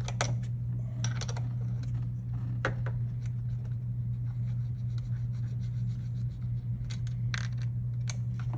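Scattered light metallic clicks and clinks of a wrench and battery terminal hardware as a cable nut is worked off a golf cart battery terminal, over a steady low hum.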